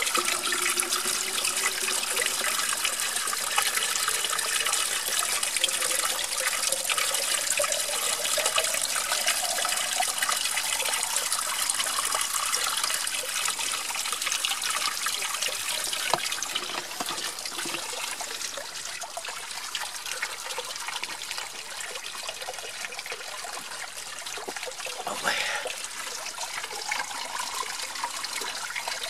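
Spring water pouring from a plastic pipe spout into a bottle, the pitch rising as the bottle fills, then the stream splashing steadily onto the stones below.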